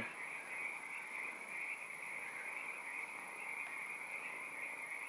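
A faint, steady, high-pitched background drone with no clear beginning or end.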